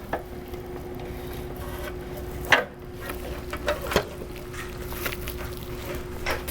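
A few sharp knocks from the screen's roll tube being seated into its housing brackets, the clearest about two and a half and four seconds in, over a steady low rumble with a constant hum.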